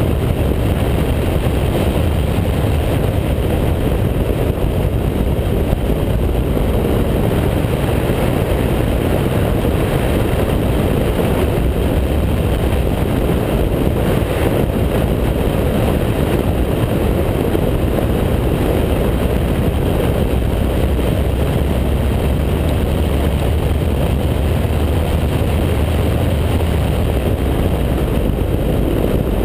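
Mazda MX-5 Cup race car's four-cylinder engine running hard at track speed, largely covered by a steady rush of wind over the camera mounted outside the open cockpit.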